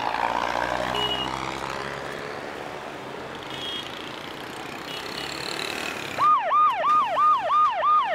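Street traffic noise for about six seconds, then an ambulance siren starts up: a fast yelp of repeated falling sweeps, about three or four a second.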